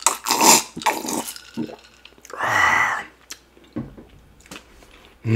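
A man gulping a drink from a glass jar in quick swallows, close to the microphone, then one loud breath about two and a half seconds in, with small mouth clicks after it.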